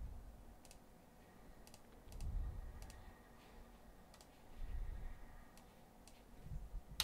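Faint, scattered computer mouse clicks, about eight in all, as the software interface is worked. Between them come three soft low rumbles about two seconds apart, a little louder than the clicks.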